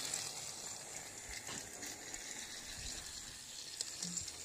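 Faint steady whirring hiss of battery-powered Trackmaster toy trains, Hyper Glow Ashima and Thomas, running on plastic track, with a few light clicks.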